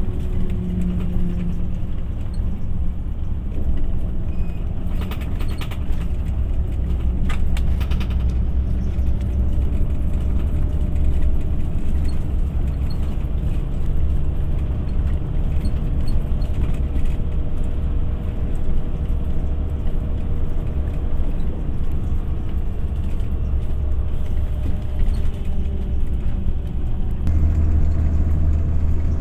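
Steady low rumble of a motor vehicle running, with faint engine tones that drift slowly in pitch.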